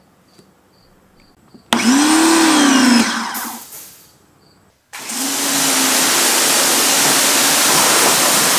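Ryobi 1600 PSI electric pressure washer: its motor starts with a whine that rises then falls in pitch and dies away within about two seconds. A few seconds later it starts again and runs steadily under the loud hiss of the water jet spraying from the wand.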